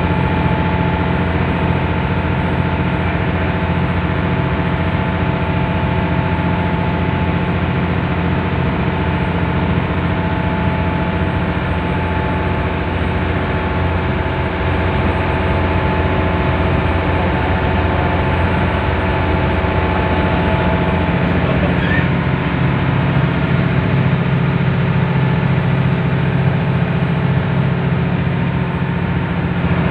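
Small boat's engine running steadily under way, a heavy low drone with steady humming tones above it, heard from inside the wheelhouse.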